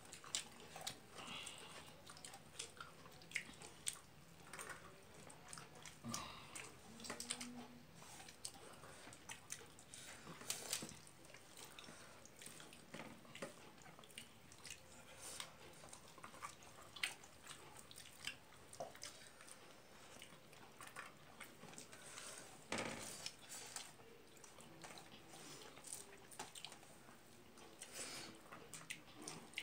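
A person eating rice and curry by hand: fingers working the rice on the plate, and chewing. It is heard as faint, scattered short clicks and small mouth noises.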